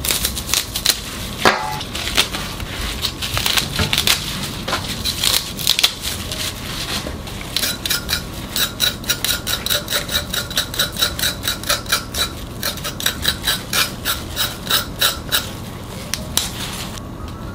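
Kitchen knife scraping the skin and soil off young radish (yeolmu) roots, in a quick, even rhythm of about four strokes a second through the second half. Before that, irregular knife cuts and scrapes as stalks are trimmed.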